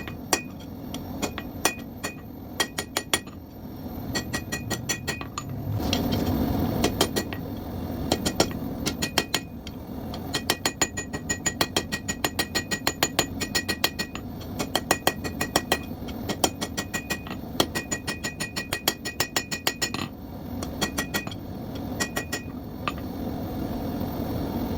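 Blacksmith's hand hammer striking hot steel on an anvil during forging, in quick runs of blows about four or five a second, each with a bright metallic ring. There are short breaks between runs, one about four seconds in and one near the end, over a steady low background noise.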